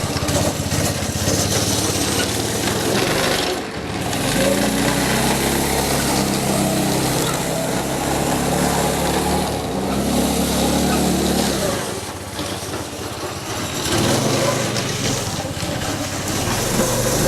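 Small snowmobile engine running as it is ridden, revving up and easing off, with the throttle dropping about four seconds in and again around twelve seconds.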